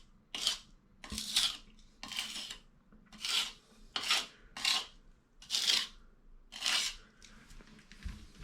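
About ten short rubbing strokes in a row, at an uneven pace of roughly one every half second to a second: something being rubbed or scrubbed back and forth by hand across a surface.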